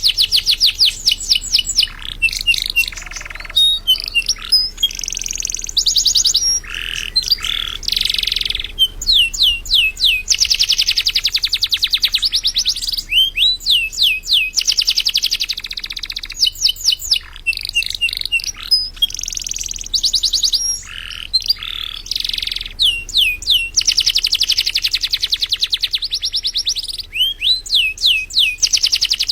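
Domestic canary in full, non-stop song: long rolling trills of very fast repeated notes alternating with quick up-and-down sweeping whistles and buzzy phrases, high-pitched and loud, with only brief pauses between tours.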